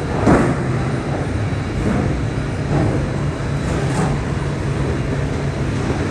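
Stamping press line running: a steady low machine hum with a sharp metal thump about a third of a second in and fainter knocks every second or so.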